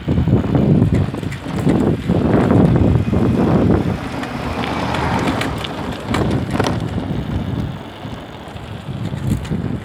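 Wind buffeting the microphone in loud, gusty rumbles, easing a little in the second half.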